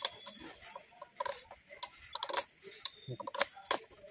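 Irregular metal clicks and ticks of a wrench working a threaded galvanized-iron elbow on a pipe.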